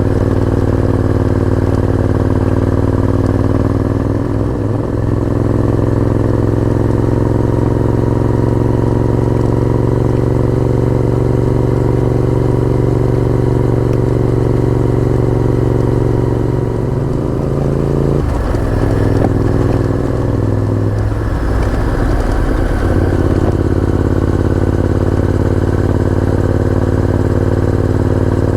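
Honda VTR1000F's 90-degree V-twin engine running at a steady speed under way. About two-thirds of the way through, the engine note drops and breaks up for a few seconds, then settles back to a steady note.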